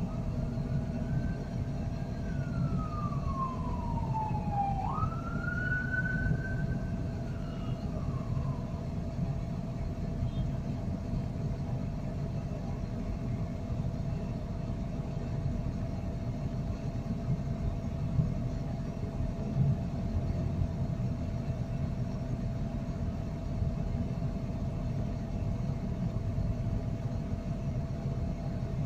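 Heavy piling-site machinery running with a steady low rumble and hum, from the crane lifting and lowering a steel pile casing. During the first several seconds a siren-like wailing tone falls, jumps back up, and slowly falls again.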